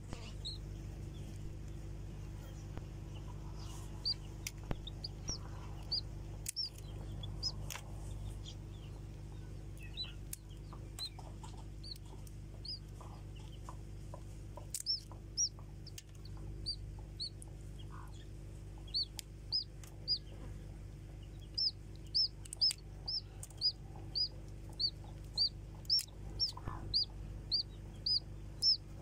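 Newly hatching chick peeping from its egg while bits of shell are picked off by hand: short high peeps, scattered at first, then coming about twice a second near the end, with a few small clicks from the shell. A steady low hum runs underneath.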